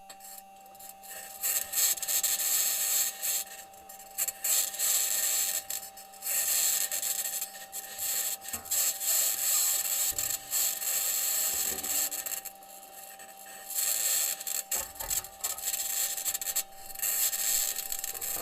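NASA Perseverance rover's onboard microphone recording of the rover driving on Mars: harsh scraping and grinding from the wheels and drivetrain, in long bursts broken by brief lulls, over a faint steady tone.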